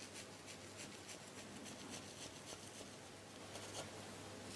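A flat blade cutting through a freshly baked castella sponge in a cast-iron skillet: faint, rapid scratchy crackling as the crust and crumb give way under the blade.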